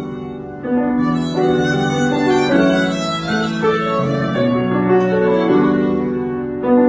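Violin playing a melody over piano accompaniment, with notes held and changing about every half second to a second.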